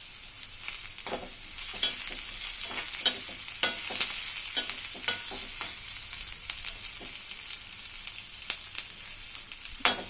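Sliced onions sizzling in oil in an iron kadai while a spatula stirs them, scraping and knocking against the pan several times a second. The onions are being sautéed until they turn golden brown.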